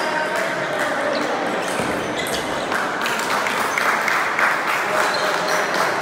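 Table tennis ball clicking and bouncing between points, over a steady background hiss.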